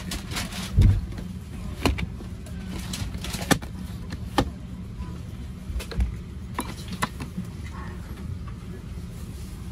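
A plastic seatback tray table on a Boeing 737-800 being handled and folded up gives a series of clunks and clicks. The loudest is a low thump about a second in. A steady cabin hum runs underneath.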